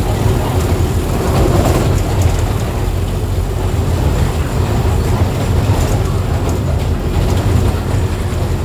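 Mercedes-Benz OF 1418 bus's front-mounted diesel engine running steadily with a deep, even drone, as the bus travels.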